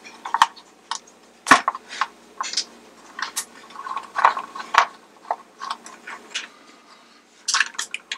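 Irregular clicks, taps and small clinks of hands working small screws and plastic parts loose from a music-box merry-go-round's base, with one sharper knock about a second and a half in.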